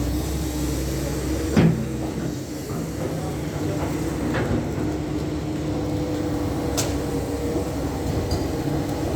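Doosan DX420 excavator working: its diesel engine running steadily with a held hum, and metallic clanks from the machine, a loud one about a second and a half in and lighter knocks later.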